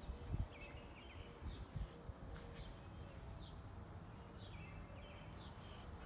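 Harbor Breeze 52-inch ceiling fan running steadily with a low rumble of motor and moving air. Small birds chirp briefly several times in the background.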